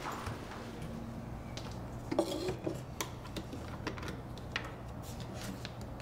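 Scattered light clicks and small clatters from a plastic juice jug and a glass being handled on a kitchen table, over a low steady hum.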